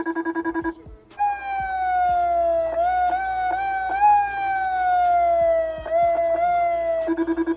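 American-style electronic vehicle siren through two horn speakers, cycling its tones. A rapid pulsing buzz opens, then a long wail falls slowly in pitch with a few quick upward chirps. The pulsing buzz returns near the end.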